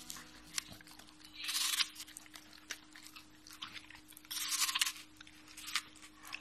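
A dog sniffing at a piece of food held in fingers: short breathy puffs of air about every three seconds, with small clicks and nibbling sounds between them.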